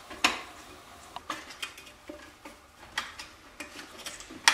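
Flathead screwdriver clicking and scraping against the sheet-metal tabs of a draft inducer's housing as the tabs are bent back: a string of irregular light metallic clicks, the sharpest about a quarter second in and another at the very end.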